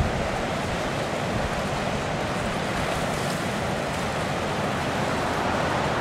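Steady rush of wind and ocean surf, with gusts buffeting the camcorder's built-in microphone.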